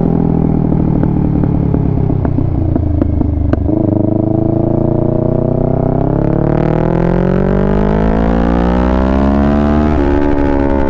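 Kawasaki Ninja 650's parallel-twin engine through a full-system Mivv exhaust, on a light throttle with a few sharp pops at first. About three and a half seconds in it opens up and revs steadily higher under hard acceleration, with a brief drop in pitch near the end as it shifts up.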